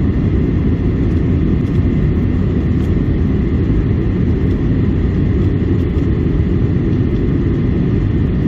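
Steady low drone of a Boeing 737-800 in flight, its engine and airflow noise heard from inside the cabin.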